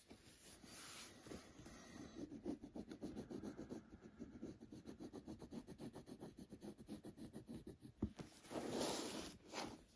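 Graphite pencil scratching on a stack of paper in quick, repeated short strokes as a curved outline is sketched, with a louder, longer scrape near the end.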